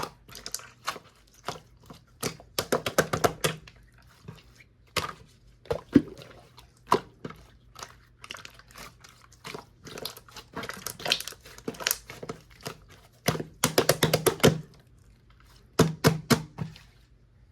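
Slime being squished, pressed and stretched by hand, making runs of sticky clicks and small pops that come in quick clusters, with quieter gaps between.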